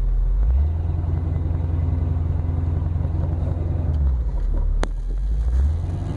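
Truck engine running as the truck is driven, its note picking up about half a second in, dropping back about four seconds in and picking up again near the end. A single sharp click about five seconds in.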